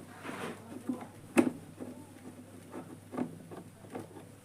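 Scattered light clicks and taps of objects being handled, with one sharper click about a second and a half in.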